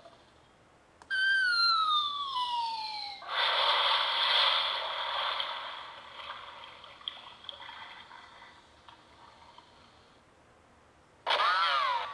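Cartoon sound effects played through a phone's small speaker: a falling whistle that drops steadily in pitch for about two seconds, then a noisy crash that fades away over several seconds. A short warbling effect follows near the end.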